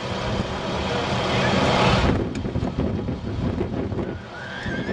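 A loud hissing rush builds over about two seconds and then cuts off suddenly, over a steady low engine rumble.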